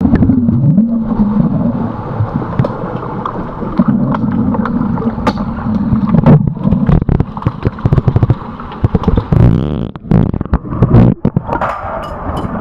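Underwater sound in a swimming pool during an underwater hockey game, heard through a submerged camera: a loud, churning rumble of water with many sharp clicks and knocks, coming thickest in the second half.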